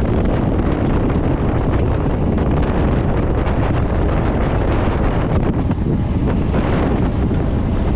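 Steady wind noise buffeting the microphone of a handlebar-mounted camera on a road bike riding at about 40 km/h.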